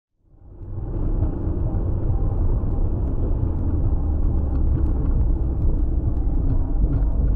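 Steady low rumble of a car driving on the highway, engine and tyre noise heard from inside the cabin, fading in about a second in.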